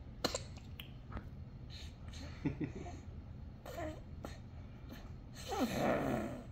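A baby's small vocal sounds: a few short pitched noises, then a louder, breathy sound falling in pitch near the end, with a few sharp clicks in the first second or so.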